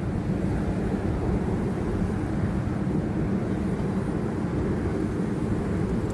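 Forge running with a steady low roar.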